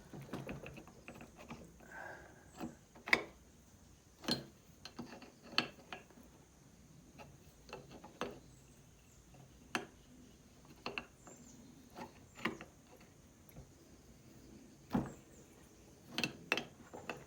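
Hand tools clicking and knocking against the metal of an air compressor pump being taken apart, in scattered sharp clicks with quiet gaps, the loudest about three seconds in and another near fifteen seconds.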